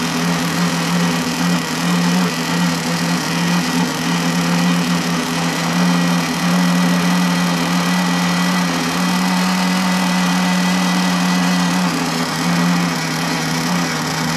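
Small two-stroke glow-fuel nitro engine of a Pro Boat Blackjack 26 RC boat running steadily, a loud high buzz that holds a nearly constant pitch with slight wavers.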